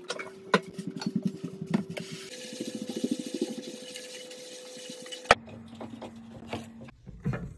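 A black frying pan being scrubbed in soapy water at the sink with quick, rapid strokes. About five seconds in the scrubbing stops abruptly, and a few light clicks and taps follow.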